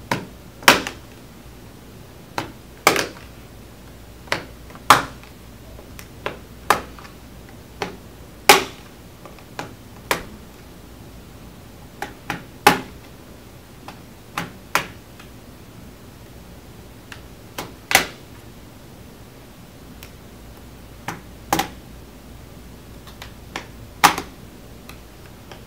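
Plastic retaining clips of an HP Chromebook G4 Education Edition's keyboard bezel clicking as a metal spudger pries the bezel edge upward, releasing the clips one by one. Sharp single clicks at irregular intervals, about two dozen, some in quick pairs.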